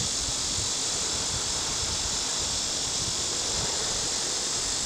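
Steady outdoor chorus of insects: an even high-pitched hiss that does not change, with a faint low rumble underneath.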